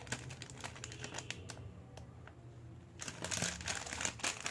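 Small clicks and plastic rustling as jewellery and its clear plastic packets are handled, with a brief lull in the middle.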